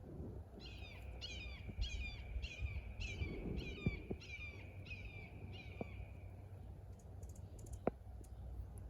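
A bird calling, a run of about ten quick downward-sweeping notes a little over half a second apart, which stops around six seconds in. A few faint clicks of handling are heard around it.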